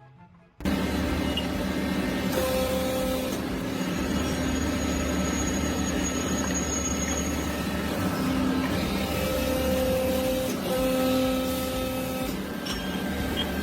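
A machine running steadily, a dense mechanical noise with a few held tones, starting abruptly about half a second in.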